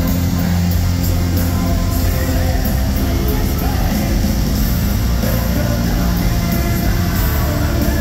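A hard rock band playing loud, dense live music with electric guitar through an arena PA, heard from within the crowd.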